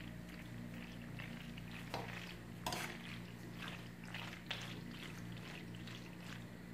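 Metal spoon stirring and scraping through yogurt-coated short pasta in a granite-coated pot, with a few sharper clinks of the spoon against the pot, the loudest about two and a half seconds in. A steady low hum runs underneath.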